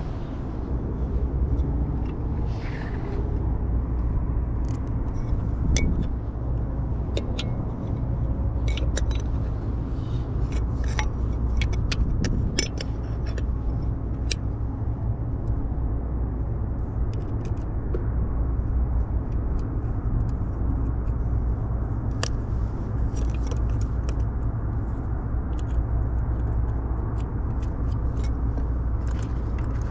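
Steady low mechanical rumble with a constant hum, overlaid by scattered light clicks and taps of tools and small parts being handled.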